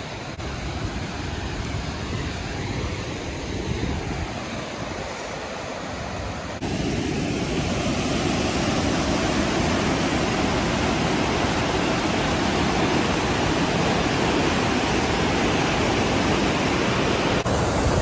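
Rain-swollen creek rushing and churning over rocks, a steady wash of water noise. It jumps abruptly louder and fuller about six and a half seconds in, then holds steady.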